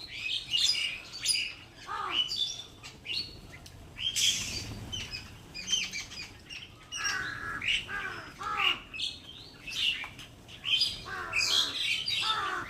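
A group of small birds chirping and squawking, many short calls overlapping throughout, with a brief rustling burst about four seconds in.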